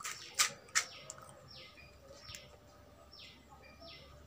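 A bird calling over and over in the background: short chirps that slide down in pitch, about two a second, starting about a second and a half in. Three sharp clicks come in the first second and are the loudest sounds.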